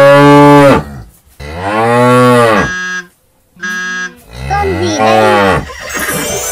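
Cattle mooing repeatedly, presented as the call of a banteng: several long, drawn-out moos one after another, with a brief silence about three seconds in.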